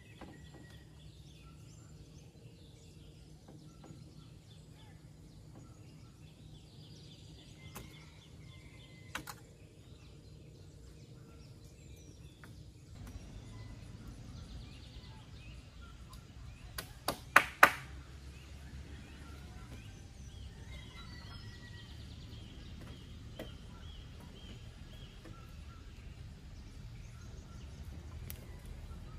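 Outdoor ambience with faint bird calls, and a quick run of four sharp knocks a little past halfway through, much louder than the rest.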